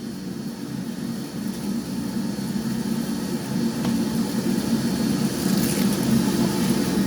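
DeWalt table saw running and cutting wood, a steady low mechanical rumble that grows gradually louder.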